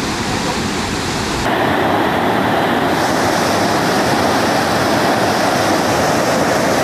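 Steady, loud rushing of a muddy flash-flood torrent. About one and a half seconds in, the sound cuts to a second recording of floodwater surging, a little louder.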